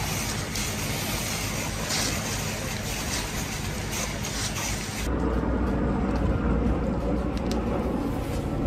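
A fire hose's water jet hisses against a burning house. About five seconds in, the sound cuts to a lower, duller noise of the house fire, with scattered sharp crackles and pops.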